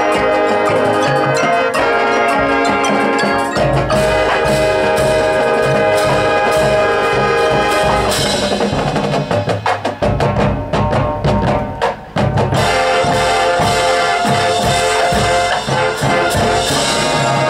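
High school marching band playing a field show: brass chords over drumline and front-ensemble mallet percussion. For a few seconds in the middle the brass falls back under a run of rapid percussion strikes, then the held brass chords return.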